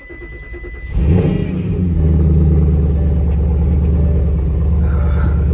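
A 2009 Porsche Cayenne GTS's V8 engine starts about a second in, flares briefly and settles into a steady idle.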